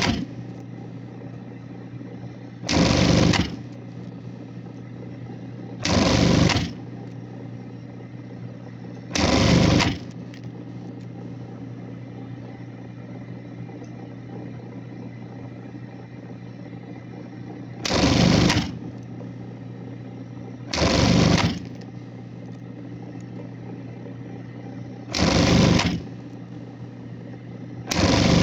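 Industrial sewing machine stitching in short runs: seven quick bursts of under a second each, a few seconds apart with one longer pause in the middle, over a steady hum.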